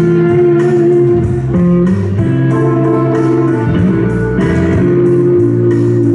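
Latin dance music playing for a ballroom competition heat: guitar over a steady percussion beat, about two beats a second.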